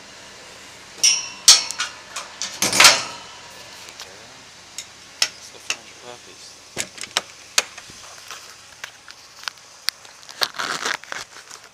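Metal clanks and rattles of a wire kennel door being shut on an animal-control truck's dog compartment, with the loudest bang about three seconds in, then scattered clicks and knocks as the compartment is latched. Footsteps on gravel near the end.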